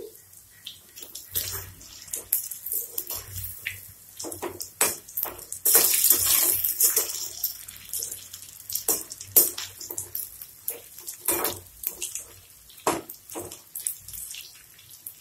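Fritters of dosa batter sizzling and crackling in hot oil in a metal kadai, with a slotted spoon clinking and scraping against the pan as they are turned over. The sizzling swells loudest for a second or two around the middle.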